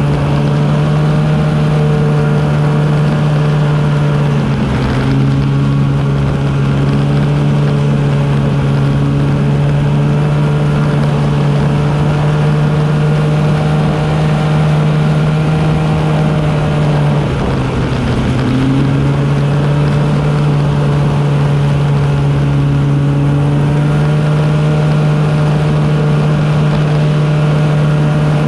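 Arctic Cat snowmobile engine running steadily at cruising speed on a groomed trail. The pitch shifts briefly about five seconds in, and the engine eases off about seventeen seconds in before picking back up.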